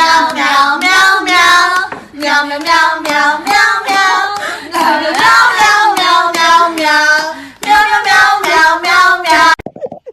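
A child singing loudly in a steady run of phrases, breaking off abruptly near the end.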